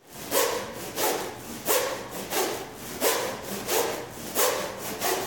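A pair of Smovey rings swung back and forth, the metal balls rolling inside their hollow plastic tubes with a rhythmic rushing whoosh on each swing, about three swings every two seconds.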